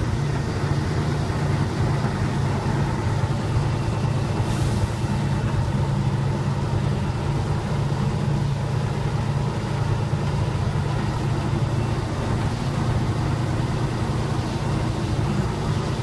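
Tatra 813's air-cooled V12 diesel engine running steadily as the truck drives over a dirt track, heard from inside the cab as an even low drone. A short hiss about four seconds in.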